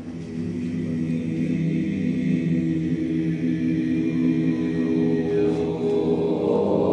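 Several voices holding a low sustained tone in unison, like a chant, growing louder over the first two seconds and then staying steady.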